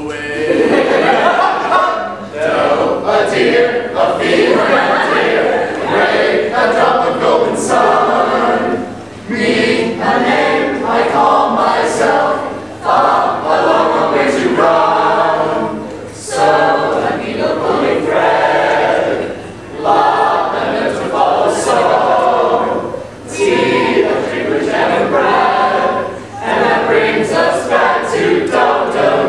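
A small mixed choir of men and women singing a cappella, in phrases broken by short breaths every few seconds.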